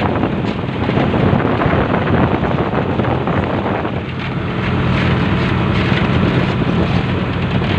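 Wind buffeting the microphone over the steady drone of a fishing boat's engine; the engine hum comes through more plainly about halfway through.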